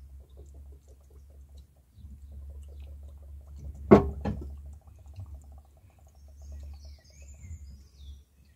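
Coolant glugging and gurgling in the Daihatsu Hijet's radiator filler neck as trapped air bubbles up out of the cooling system during bleeding, over a steady low rumble. A sharp knock comes twice, close together, about four seconds in.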